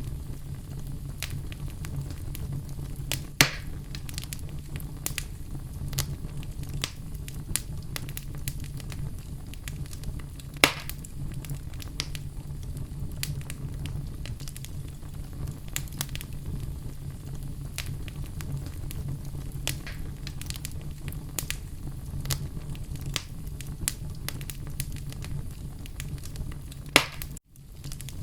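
Fire crackling in a fireplace: a steady low rumble and hiss of the flames with frequent small crackles and three louder sharp pops spread through it. The sound drops out for an instant near the end.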